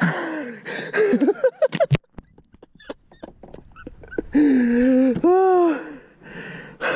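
A man's wordless excited exclamations: sliding 'ooh'-like cries in the first two seconds, a quieter moment with a few faint clicks, then a long held whoop about four and a half seconds in that rises and falls in pitch.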